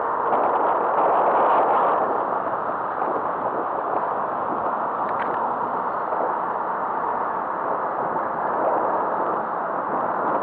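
Steady rushing noise of waves breaking in the surf along a sandy beach.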